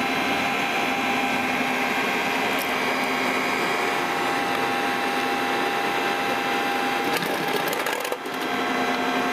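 Motor-generator set running steadily: an old electric motor belt-driving an alternator, giving a constant mechanical whir with steady humming tones. A few clicks come about seven seconds in, followed by a brief dip in level just after eight seconds.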